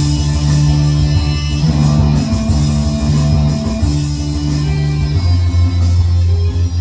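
Electronic keyboard playing an instrumental melody over held bass notes, with the bass dropping to a lower note about five seconds in.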